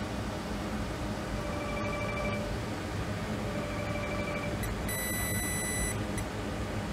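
Electronic beeping: a lower beep about a second long comes roughly every two seconds. A higher, brighter beep sounds for about a second near the end. A steady low hum runs underneath.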